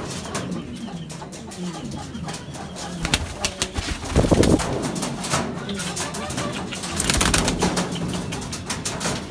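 Domestic pigeons cooing in a loft, low repeated coos from a male turning in a courtship display. A couple of louder rustling bursts break in, about four and seven seconds in.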